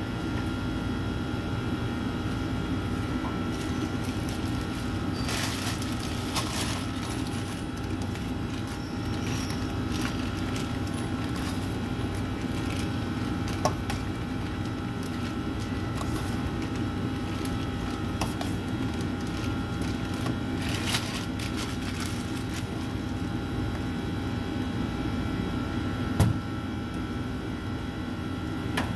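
Steady hum of commercial bakery machinery, with several tones held throughout under a low rumble. Occasional light knocks and clatters break in, the sharpest one near the end.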